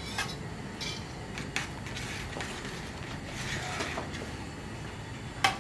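Scattered light clicks and scrapes of a metal palette knife against a stainless steel mixing bowl and cake turntable as whipped cream is spread on a cake, over a steady low hum. The sharpest click comes near the end.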